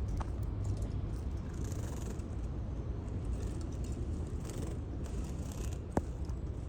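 Canaries bathing, with short bouts of splashing and wing-fluttering in the water, twice, and a couple of sharp clicks, over a steady low rumble.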